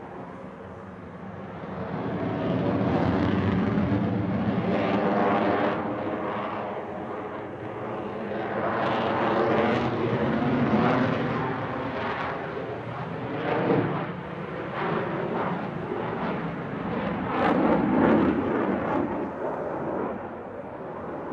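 Jet noise of a Sukhoi Su-35 fighter's twin AL-41F1S turbofans in a flying display, swelling and fading several times as the jet passes and manoeuvres, with sweeping tones gliding up and down through the noise.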